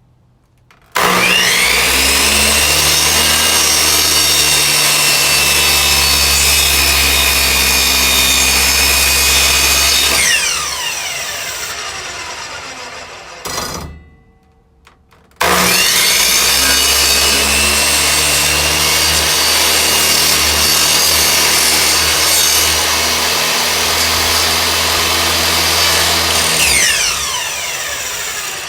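Electric miter saw shaving a sliver off the end of a wooden board, run twice. Each time the motor starts with a sudden whine, runs steadily for about nine to eleven seconds, then winds down with a falling pitch after the trigger is released.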